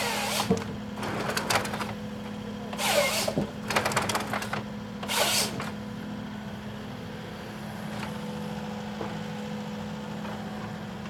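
Excavator-carried PONSSE H6 harvester head at work: the carrier's diesel engine running with a steady low hum, broken in the first six seconds by four short hissing bursts, one with rapid crackling, as the head works the logs. After that only the steady engine hum remains.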